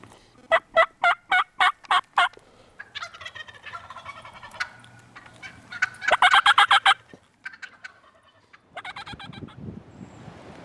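Wild turkeys calling: a quick run of about eight loud yelps early on, then gobbling several times. The loudest gobble comes about six seconds in and a fainter one near the end.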